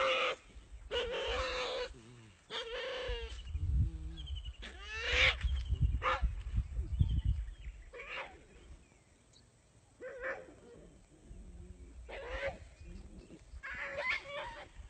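Dog caught in a python's coils whimpering and yelping in distress, with repeated pitched cries one every second or two.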